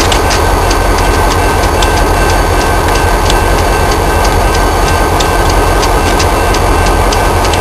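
Paducah & Louisville freight train rolling along with a steady loud rumble, its wheels clicking over rail joints about three times a second, and a thin steady whine above the noise.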